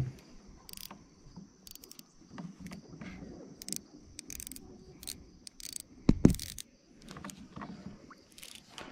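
Baitcasting reel clicking in short, irregular bursts while a hooked bass is fought, with one loud low thump about six seconds in.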